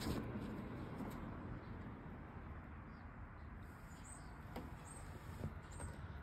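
Faint outdoor background with short, high bird chirps that begin about halfway through and repeat roughly once a second.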